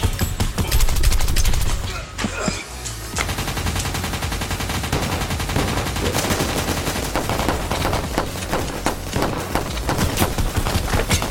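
Movie shootout gunfire: rapid shots in quick succession, loudest in the first couple of seconds, over a music track with a steady bass.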